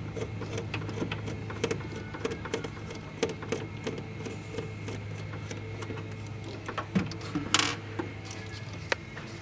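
Screwdriver backing out a small screw from an avionics unit's mounting: many light clicks and scrapes of metal on metal, over a steady low hum, with one louder scrape about three-quarters of the way through.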